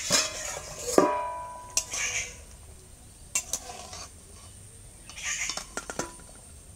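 Stainless steel lid clanging against metal about a second in, with a ringing tone after the strike. Then a metal ladle scrapes and taps in an iron kadai of boiling potatoes as they are stirred.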